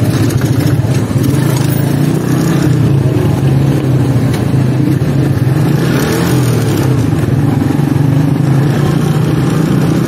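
Old Honda motorcycle engine running steadily with a low, even note, heard close up from the bike itself.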